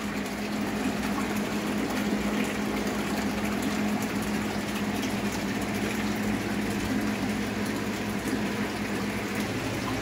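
Aquarium pumps and filtration running: a steady low hum under a constant rush of moving water.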